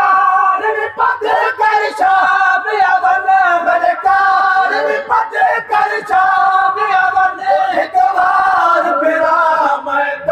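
Men's voices singing a noha, a Shia mourning lament, loudly in unison: a lead reciter with the crowd chanting along. Sharp slaps come about once a second from the mourners' chest-beating (matam).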